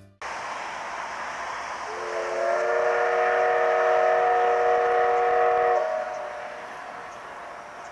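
C12 66 steam locomotive's whistle sounding one long chord-like blast of about four seconds as the train departs, over a steady background rush.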